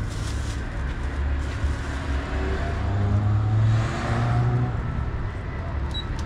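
Low, steady rumble of a motor vehicle's engine.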